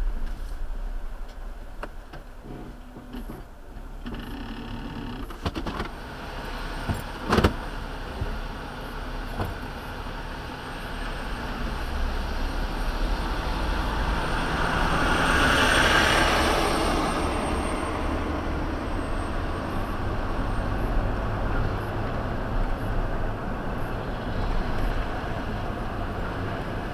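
Vehicle sounds: a steady low rumble, a single sharp knock about seven seconds in, and a vehicle passing close, its noise swelling and fading around the middle of the stretch.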